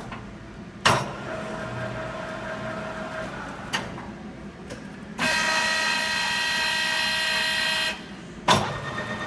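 LeBlond-Makino servo-shift engine lathe running during a spindle speed change, with sharp clicks about a second in, near four seconds and near the end. From about five seconds in it gives a louder, steady, many-toned whine for nearly three seconds, which then cuts off.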